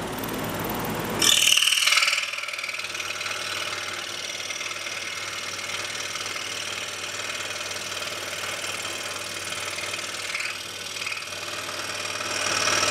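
Scroll saw cutting a straight line through a wooden table-leg blank with a precision-ground-tooth blade. About a second in, the sound jumps to ten-times speed, and the saw's steady running becomes a high-pitched, fast, buzzing chatter.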